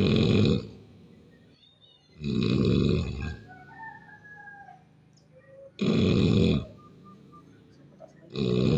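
A sleeping person snoring loudly. Four rough, rattling snores about two and a half to three seconds apart, with quiet breathing gaps between.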